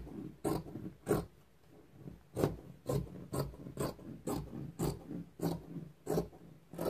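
Razor edge scissors cutting through flannel fabric, closing in a steady run of about a dozen crisp snips, roughly two a second, with a brief pause about one and a half seconds in.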